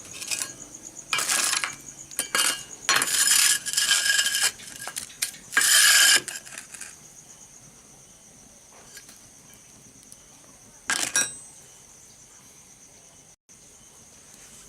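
Several short bursts of metallic clatter and rattling in the first six seconds and one more about eleven seconds in, over a steady high trill of crickets.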